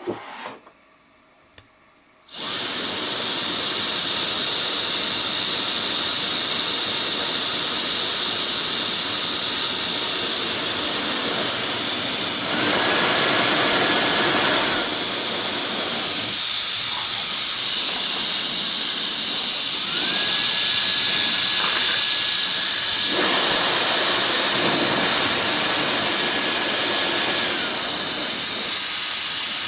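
SUPGALIY mini ionic hair dryer switched on about two seconds in, blowing a steady rush of air with a high motor whine. It gets louder twice: briefly near the middle, then for several seconds later on.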